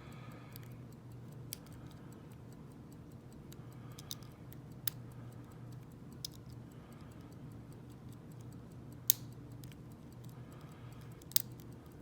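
Small, irregular metallic clicks and ticks of a lock pick and tension tool working the pins inside a 40 mm Guard Security padlock, with a sharper click about nine seconds in and another near the end, over a faint low hum.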